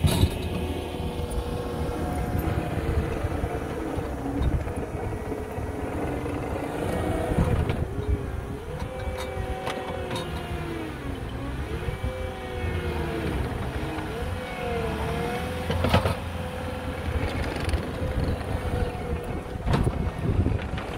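Tracked skid steer's diesel engine working under load, its pitch rising and falling as the machine drives and the grapple bucket bounces over and scrapes through dirt clods. A few sharp knocks as the bucket and tracks bang on the ground.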